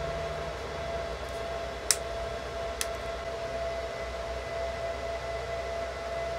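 Steady whine over a low hum: the constant background noise of the recording. Two light clicks come about two and three seconds in.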